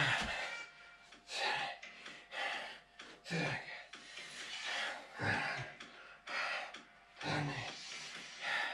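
A man's sharp, forceful breaths, about one a second, puffed out in time with repeated front kicks of one leg.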